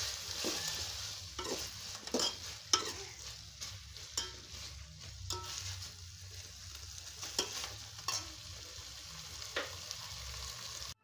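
Metal spoon stirring a stew of okra and fish in an aluminium pot, with irregular clinks and scrapes against the pot over a steady sizzling hiss of the food cooking.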